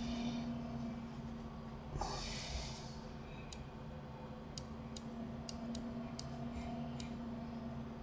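Computer mouse clicking, about seven short sharp clicks spread over the second half, over a steady low hum. About two seconds in, a breath into the microphone.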